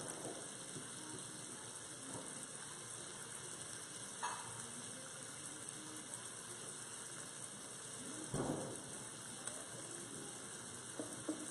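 Melted buttery spread and ghee sizzling faintly in the hot Instant Pot's inner pot, a steady soft hiss. There are two short knocks, about four and eight seconds in.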